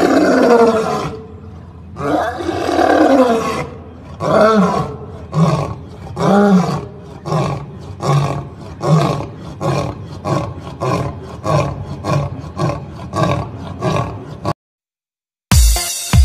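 Male lion roaring: two long, drawn-out roars, then a series of shorter grunts at about two a second that gradually shorten, ending abruptly. Electronic music starts near the end.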